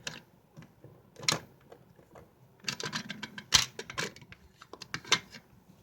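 Small plastic toy figures and pieces handled on a hard surface: scattered clicks and taps, bunched together with one sharp knock about three and a half seconds in.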